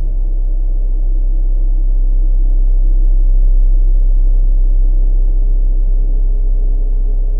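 A deep, steady rumbling drone with faint held tones above it, swelling slightly in the middle.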